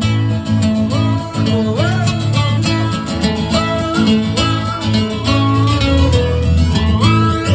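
Amplified acoustic guitar playing an instrumental break between verses of a song, with a melody line above it that slides up into held notes.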